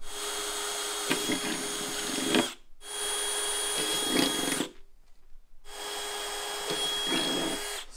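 Cordless drill boring pilot holes through the Jeep's body sheet metal, in three runs of about two seconds each with short pauses between. The motor whines at a steady pitch.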